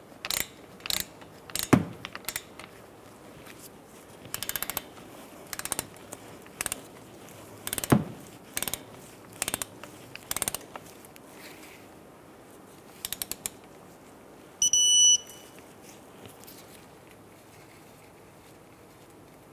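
A hand ratchet clicks in short runs on brake caliper bolts. About fifteen seconds in, a digital torque wrench gives one half-second beep, the signal that the set torque has been reached.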